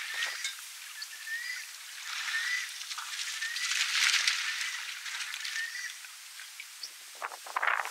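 African elephant spraying water from its trunk, the spray splashing onto the waterhole's surface as a rushing splash that swells about two and a half and four seconds in.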